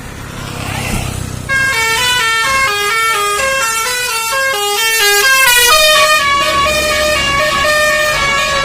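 Basuri multi-tone 'telolet' bus horn playing a quick tune of short stepped notes. It starts about a second and a half in and goes into somewhat longer notes in the second half, over a low vehicle rumble.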